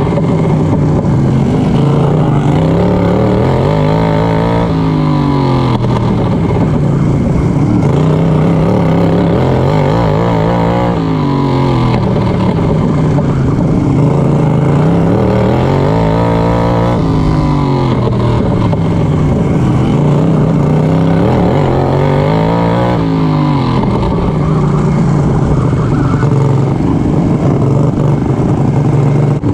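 Racing lawnmower's engine at full race pace, heard onboard: its pitch climbs along each straight and drops back for each turn, about five times over.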